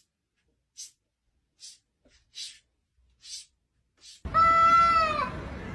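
A few faint, short hissy sounds come about a second apart. Then, about four seconds in, a cat gives one long, loud meow that drops in pitch at its end.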